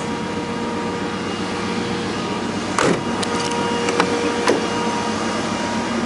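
Electric fan running with a steady hum. A knock about three seconds in is followed by a few lighter clicks.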